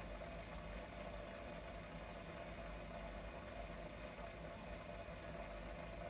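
Aquarium pump running with water bubbling: a steady low hum under an even bubbling wash.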